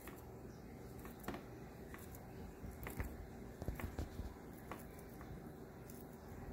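A banana sliced in hand with a small knife, with a handful of faint, irregular soft taps as the rounds drop onto a tray.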